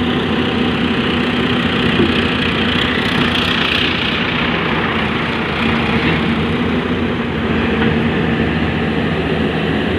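Excavator's diesel engine running steadily with an even, continuous drone.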